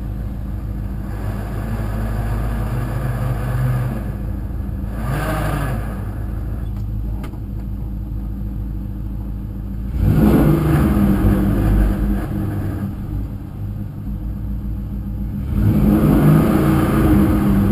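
Car engine running with a T56 six-speed manual gearbox in the driveline. The engine is revved up about ten seconds in and again near the end. Underneath it runs the rattling, grinding noise that the owner puts down to the T56.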